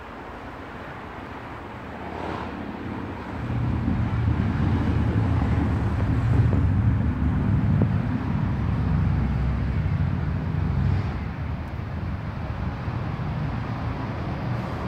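Low rumble of passing road traffic, swelling about three to four seconds in and easing off to a steadier, quieter hum after about eleven seconds.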